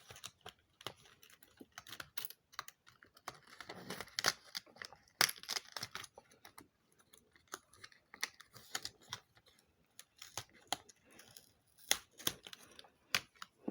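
Hands opening a cardboard advent-calendar door and handling a small pair of earrings in their packaging: irregular light clicks, taps and rustles, a few louder ones about four and five seconds in.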